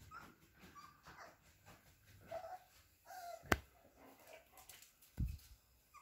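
A hungry puppy whining faintly in several short, high whines, begging for food. A sharp click comes about halfway through, and a low thump comes near the end.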